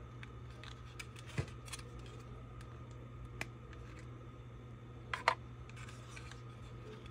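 Sharp plastic clicks and taps from handling a DJI Neo drone and its rear battery, with a loudest double click about five seconds in, over a steady low hum.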